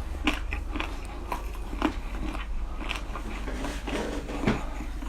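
Close-miked eating: a person biting and chewing food, with irregular wet clicks and crunches.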